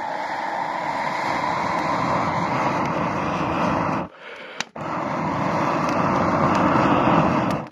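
Air blown through a metal blow tube down into the embers of a Swedish torch, a log with auger-drilled holes, fanning the fire with a steady rushing noise: two long blows with a short pause for breath about four seconds in. The blowing revives the smouldering, slightly rotten wood so that flames jet out of the lower hole.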